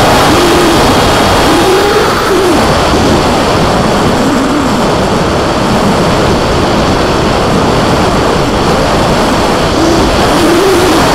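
Skyfun RC plane in flight heard from its onboard camera: heavy wind rush on the microphone over the electric motor and propeller, whose whine rises and falls in pitch every couple of seconds.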